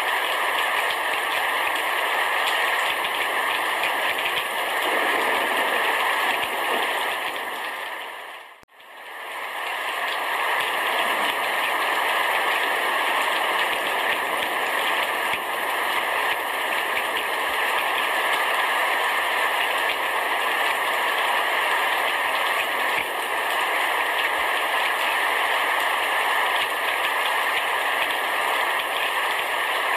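Heavy rain pelting a roof in a steady, dense patter. About eight and a half seconds in, the rain fades out for a moment and comes straight back in.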